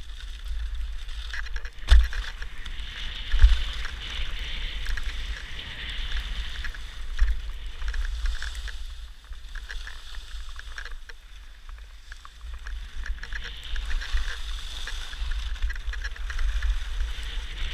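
Skis hissing and scraping over packed snow while skiing downhill, with wind buffeting the microphone in a gusty low rumble. A couple of brief thumps come about two and three and a half seconds in.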